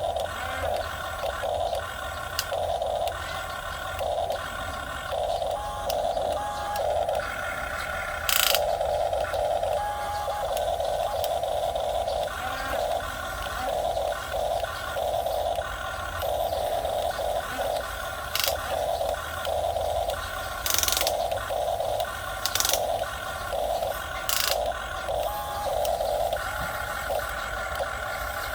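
Small electric motors and gears of a radio-controlled model excavator whirring in short starts and stops as it moves, with a few sharp clicks.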